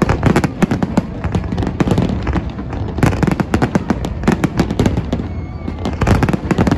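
Fireworks display: aerial shells bursting in rapid, overlapping bangs and crackles, in thick volleys with brief lulls between them.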